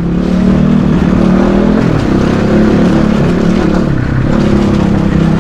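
Dirt bike engine running at low revs while riding slowly, its pitch dipping and picking up again a couple of times as the throttle eases and opens.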